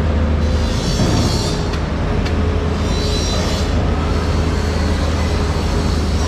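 Background music with a steady low drone and a hissing swell that rises and fades every two to three seconds.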